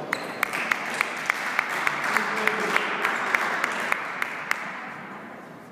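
Spectators applauding as a table tennis point ends, with one clapper standing out in a steady beat of about three claps a second; the applause dies away about five seconds in.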